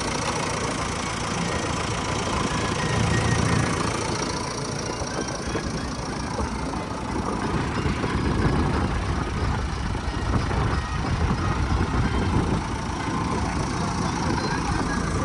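Diesel engine of heavy farm or earth-moving machinery running steadily nearby, its loudness swelling and easing slightly.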